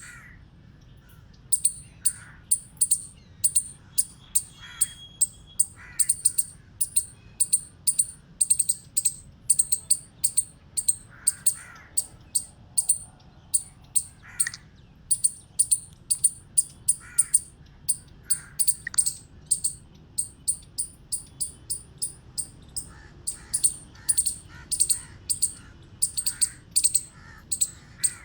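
Eastern chipmunk giving its repeated high-pitched 'chip' alarm call, a steady run of sharp chips about two to three a second that starts about a second and a half in. Fainter, lower chirps sound now and then underneath.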